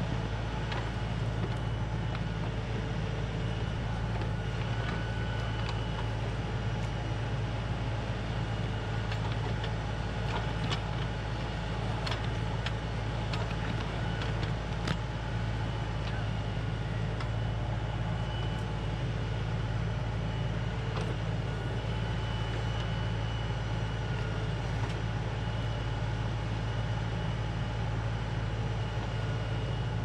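LS compact tractor's diesel engine running steadily while its backhoe digs around a stump, with a few sharp clicks and knocks from the bucket working through soil and roots around the middle.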